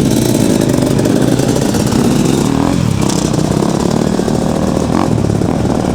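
Dirt bike engine running steadily, a loud low rapid pulsing.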